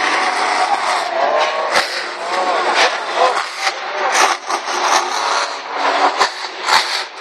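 Monster truck's supercharged V8 engine revving hard, its pitch climbing and dropping again and again, with several sharp cracks mixed in.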